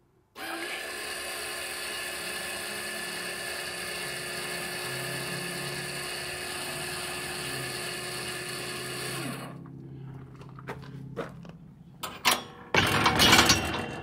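Electric linear actuator on a gate latch running steadily for about nine seconds as it drives the bolt across to lock the gate; its whine drops in pitch as it stops. A few clicks follow, then loud rattling knocks near the end.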